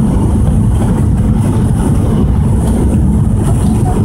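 Airliner cabin noise during the landing approach: a steady, loud rumble of jet engines and airflow.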